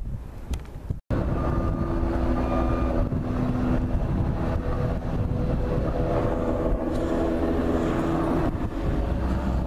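Wind on the microphone, cut off by a brief dropout about a second in. After it, an engine runs steadily with a hum of several held tones.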